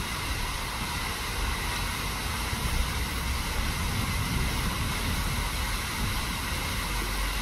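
Large tiered park fountain splashing, its falling water making a steady rushing hiss, with a low uneven rumble underneath.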